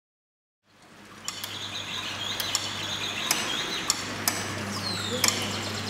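Mechanism of a moving nativity-scene display running, fading in about a second in: a steady low hum under irregular sharp clicks and ticks, with a few high squeaking glides.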